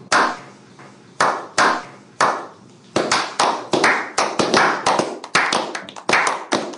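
A slow clap: a few single hand claps spaced about a second apart, then more people join in and the clapping quickens into a patter of applause from about three seconds in.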